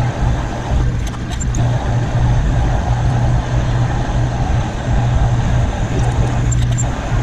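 Metal lathe running steadily, its motor and gearing humming, while a cutting tool in the toolpost works the end of a spinning metal tube, with a couple of light clicks.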